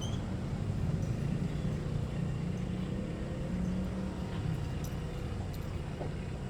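Steady low rumble of a vehicle running, with no horn sounding.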